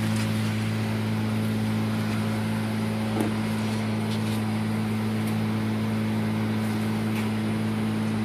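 Honda GX35 four-stroke engine on a handheld brush cutter running at a steady speed, with an even, unchanging hum and no revving.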